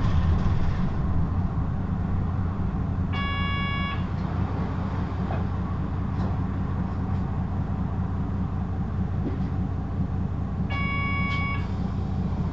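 Onboard sound of a Hino LKG-KV234N3 city bus with a six-speed manual gearbox, a steady low engine and road rumble. A short electronic chime sounds twice, about seven seconds apart.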